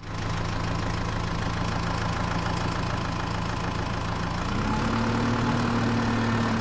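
Diesel-type engine idling steadily with a low rumble, stepping up to a slightly higher pitch about four and a half seconds in as if revved a little.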